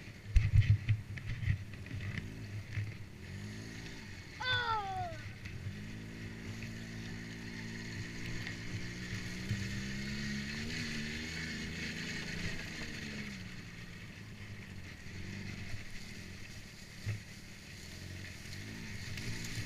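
ATV engine running under way, its pitch climbing and easing off as the throttle changes, with knocks and wind buffeting on the helmet camera's microphone in the first couple of seconds. A short falling tone cuts across it about four and a half seconds in.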